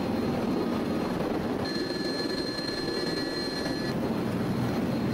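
V-22 Osprey tiltrotor's engines and proprotors running loud and steady, heard from inside the cabin during a landing. A thin high whine comes in about two seconds in and drops out about four seconds in.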